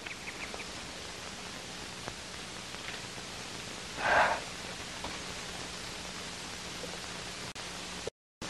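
Steady hiss and faint low hum of an old broadcast recording, with one short noisy sound about four seconds in and a brief dropout to dead silence near the end.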